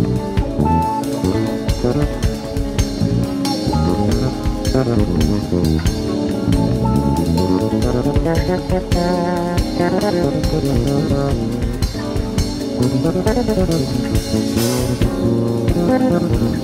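Background music: guitar, bass guitar and drum kit playing with a steady beat.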